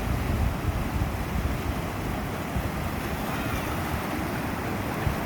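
Sea surf washing on a beach, a steady rush, with wind buffeting the microphone in a rumbling low gusting.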